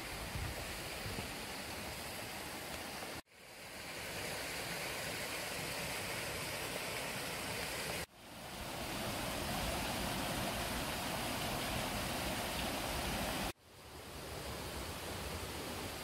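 Mountain stream rushing steadily, a dense even hiss of water. It cuts out abruptly three times and swells back in over about a second each time.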